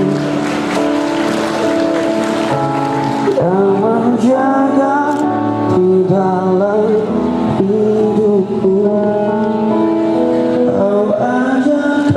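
Music with singing: long held sung notes that slide between pitches over sustained accompaniment.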